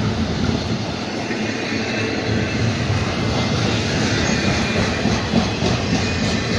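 Double-stack intermodal freight train cars rolling past close by: a steady noise of steel wheels running on the rails.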